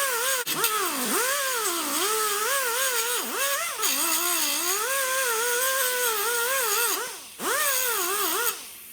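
Electric grinder grinding down sheet metal on a rusty car door corner, its motor pitch dipping and recovering again and again as it is pressed into the metal, over a steady hiss. It is lifted off briefly twice near the end.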